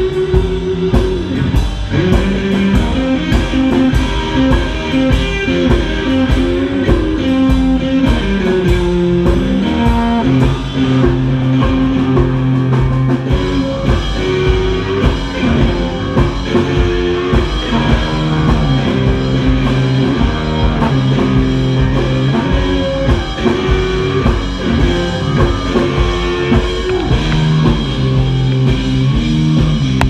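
Live rock band playing: electric guitars over a drum kit keeping a steady beat.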